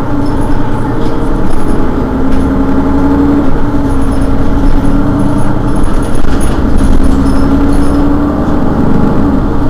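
Mercedes-Benz Citaro city bus engine idling while the bus stands still: a loud, steady drone with a humming tone that wavers slightly.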